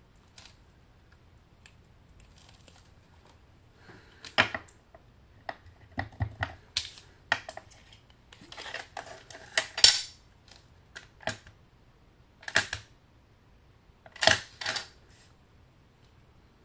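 Scattered clicks, knocks and short rustles of plastic stamping supplies being handled: a clear stamp on an acrylic block and a plastic ink pad case. They start about four seconds in, with the loudest knocks near the middle and again near the end.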